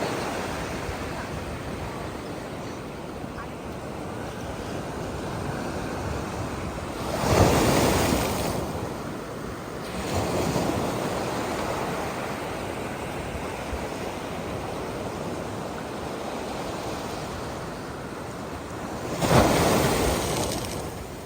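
Ocean surf: a steady wash of waves, with a breaker crashing about seven seconds in and another near the end.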